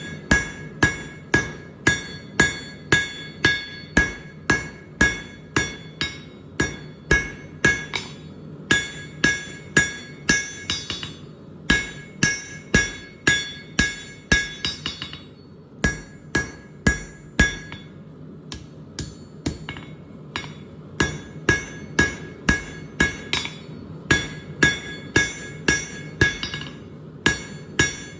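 Blacksmith's hammer forging a 1/2-inch square steel bar on an anvil, about two blows a second in runs with brief pauses, each blow ringing with a clear metallic tone.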